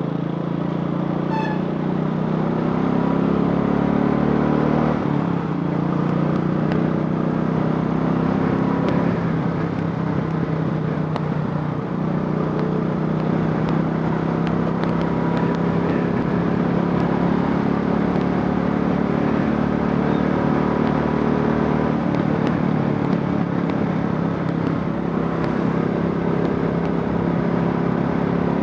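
Royal Enfield Classic 500's single-cylinder four-stroke engine, converted from fuel injection to a carburettor, running at a steady speed.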